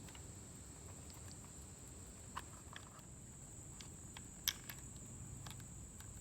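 Faint scattered clicks and taps of small battery-terminal hardware, a nut and bolt, being handled and fitted into a battery terminal, the sharpest click a little past the middle.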